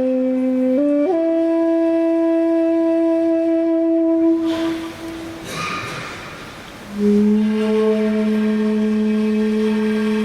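Music of long held wind-instrument notes in two parallel lines. The notes step up in pitch about a second in and break off a little before halfway. A brief rushing noise follows, then new, lower notes are held steadily through the rest.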